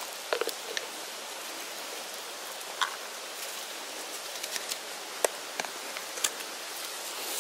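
Handling noise from a plastic geocache container and its log book being opened: scattered sharp clicks and taps, about a dozen, over a steady hiss.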